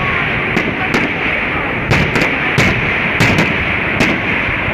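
Aerial firework shells bursting in a fireworks display: several sharp bangs at irregular intervals over a steady noisy background.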